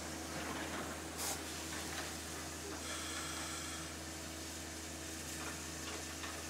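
Steady hiss over a low hum from a standing steam train, with a short, sharper burst of hiss about a second in.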